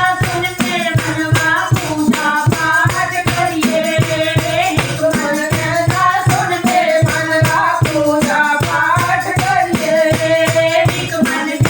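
Devotional bhajan music: a melody carried over a fast, steady beat of jingling hand percussion.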